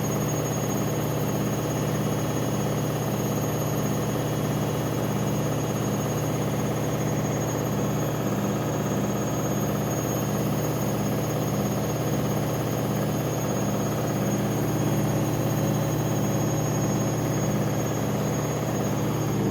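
Washing machine drum spinning at speed in the spin cycle: a steady low hum with a regular pulsing and a thin high whine.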